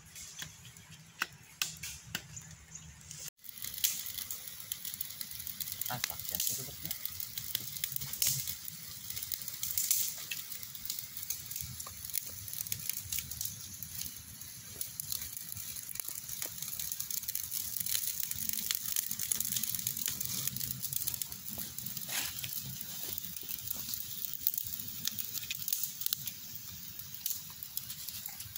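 Open wood campfire crackling, with scattered sharp pops over a steady hiss.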